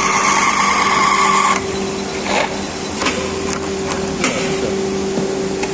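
Automatic pipe threading machine running with a steady motor hum. A high whine cuts off about one and a half seconds in, and a few sharp clicks follow.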